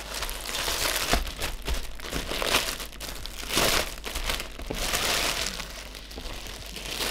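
Clear plastic packaging bag crinkling in irregular bursts as it is handled and pulled off a foam camera wrap.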